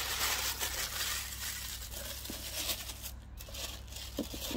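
White tissue paper wrapping crinkling and rustling as it is crumpled in the hands, dying away after about three seconds, followed by a few light clicks near the end.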